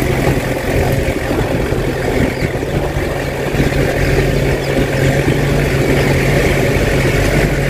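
Engine of the vehicle being ridden, running steadily at a low cruising pace, with a low hum under a constant rushing noise.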